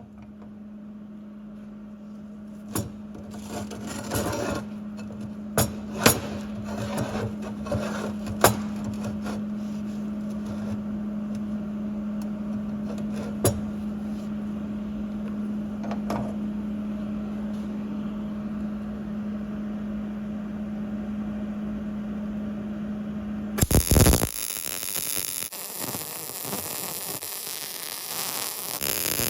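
Steady electrical hum with scattered knocks and clatters of steel parts being handled, then about twenty-four seconds in a loud burst of arc-welding crackle lasting about six seconds.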